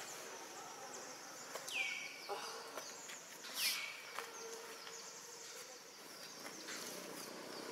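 Faint outdoor ambience with a steady high insect hum. Twice, about two seconds apart, a call sweeps steeply down in pitch and then holds briefly on one note.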